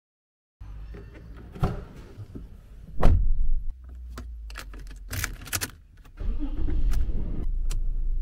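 Keys clicking and jangling at the ignition of a Toyota Land Cruiser Prado, with a few sharp clicks as the key goes in and turns. About six seconds in, the engine starts and runs steadily at idle.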